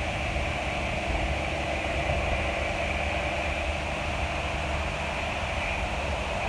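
Claas Lexion 750 Terra Trac combine harvester running steadily while harvesting rice: a constant mechanical drone over a low rumble.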